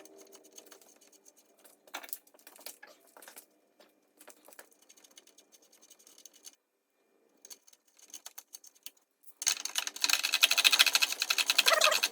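Hand tools working on car suspension parts: scattered small metal clicks, then about nine seconds in a loud, fast run of clicking, like a ratchet wrench being spun.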